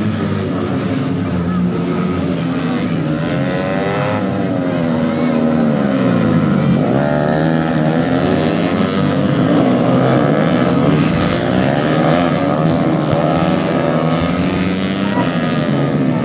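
Several racing motorcycle engines running hard at once, their pitch rising and falling as they rev and pass.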